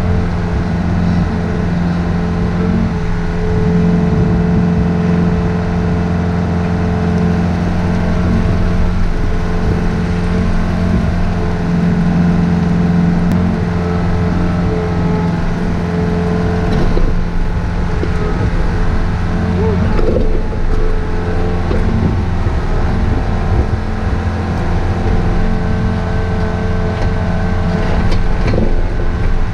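Takeuchi TB153 mini excavator's diesel engine running steadily during digging, with a few light knocks about halfway through and near the end.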